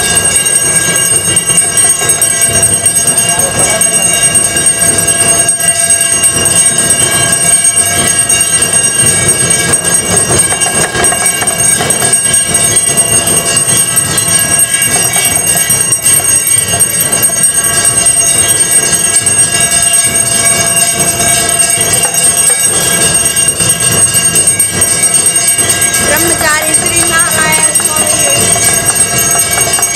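Aarti bells ringing continuously in a loud, dense metallic clanging that does not let up.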